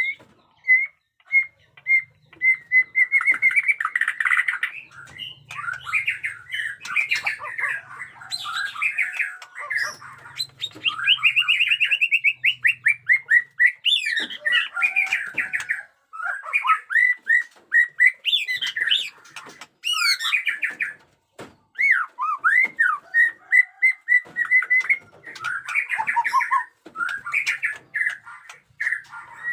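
White-rumped shama singing a long, varied song. It opens with evenly spaced repeated whistled notes, then runs into rapid trills, sweeping whistles and harsh chattering phrases, with only a couple of brief pauses.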